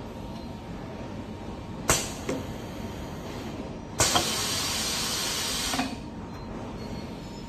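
Compressed air released by a machine's pneumatic actuators. About two seconds in comes a sharp clack with a short hiss. Halfway through, a loud, steady air hiss lasts about two seconds and ends in a click as the tooling head retracts, over a steady low machine hum.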